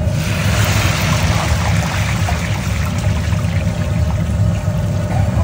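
Sabudana vadas deep-frying in a large kadai of hot oil, sizzling loudly at first and easing off a little, over a steady low rumble.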